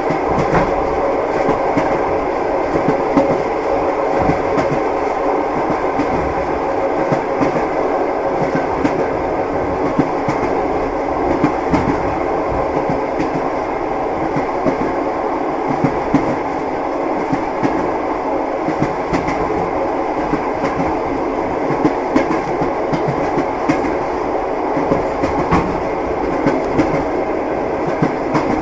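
Train wheels clacking over the rail joints over a steady rumble of a moving passenger carriage, heard from inside a compartment.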